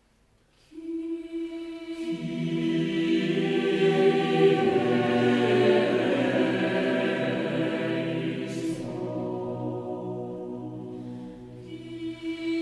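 Choral music: voices hold long, sustained chords. A single note enters about half a second in and lower voices join a second later. The sound fades near the end before a new chord begins.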